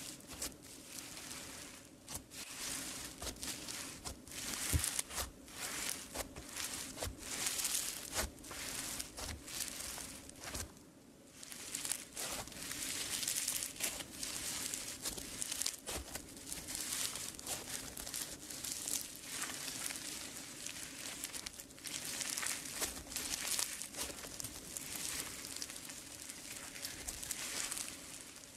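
Orange slime studded with white crunchy flakes being squeezed, stretched and pulled apart by hand, giving a dense, crisp crackling and crunching with many small pops, easing off briefly about eleven seconds in.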